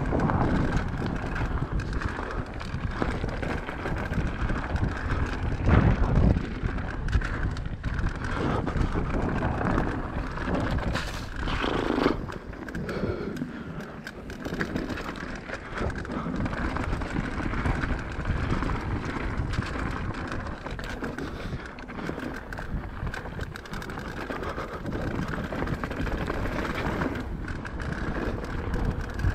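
Mountain bike descending a dirt enduro trail: tyres rolling and scraping over the rough ground with the bike rattling, and wind on the action camera's microphone. There are harder knocks about six and twelve seconds in.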